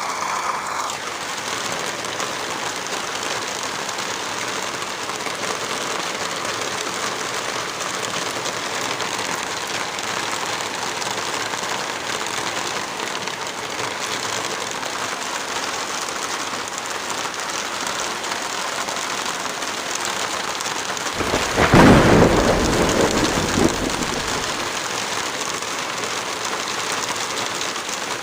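Steady rain falling, with a deep roll of thunder about three-quarters of the way through that lasts three or four seconds and is the loudest part.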